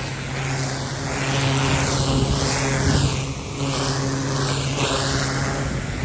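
Pressure washer running: a steady motor hum under the loud hiss of the water jet, the hiss shifting in tone as the spray moves.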